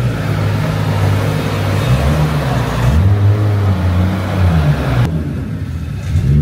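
Nissan Cima F50's 4.5-litre V8 revved several times through an IMPUL aftermarket exhaust with a straight centre pipe. The engine note climbs and falls with each rev, and the rough exhaust rush drops away about five seconds in as it settles back to idle.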